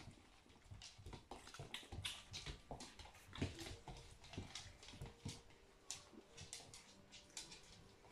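Young puppies faintly whimpering while nursing and scrambling about, with many quick clicks and patters from little paws and claws on a wooden floor.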